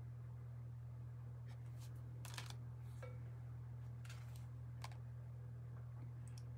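Tarot cards being set down and picked up from their decks on a wooden table: a few soft taps and slides spread over a few seconds, over a steady low hum.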